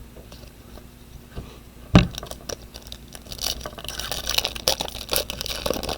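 A trading card pack's foil wrapper being torn open and crinkled, with a sharp knock about two seconds in.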